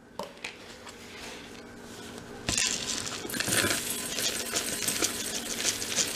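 A knock about two and a half seconds in, then dry rolled oats pouring from a cardboard canister into a glass mixing bowl: a dense, steady pattering of flakes hitting the glass and each other.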